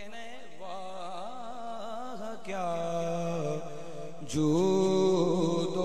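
A man chanting into a microphone in a drawn-out, melodic voice, holding long wavering notes. The chanting gets clearly louder about four and a half seconds in.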